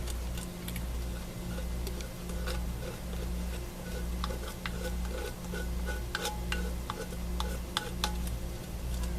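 Light scrapes and small clicks of a tool spreading texture paste on a craft surface, over a low hum that pulses about once a second.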